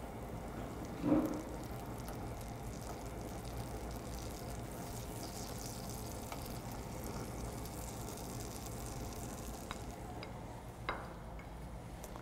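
Butter sizzling and melting in a hot nonstick skillet on a gas burner, pushed around with a spatula as it is being browned; a low, steady sizzle. There is one brief louder sound about a second in and a few light clicks near the end.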